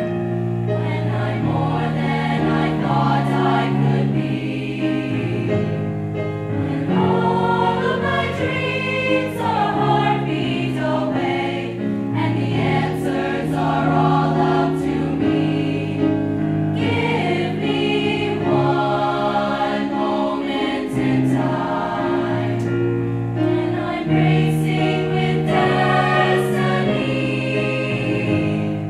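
A mixed choir of women's and men's voices singing in parts, holding long chords that change from note to note.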